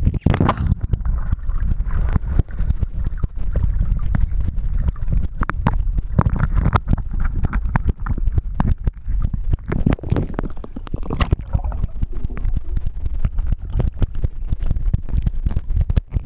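Underwater camera in a lake: a muffled low rumble of water rushing past the submerged camera, with frequent bubbling clicks and knocks as it is swung around.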